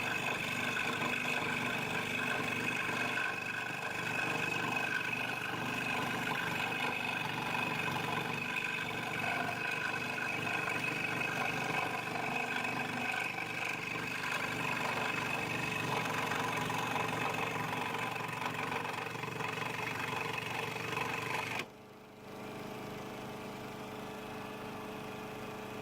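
Electric scroll saw running steadily, its blade cutting timber, with a steady whine carrying several held tones. It cuts out suddenly about 22 seconds in, leaving a quieter steady hum.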